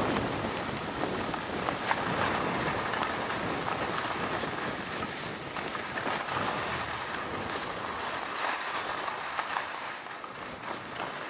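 Skis sliding and turning over soft snow with a steady hiss, mixed with wind on the microphone; the sound slowly fades.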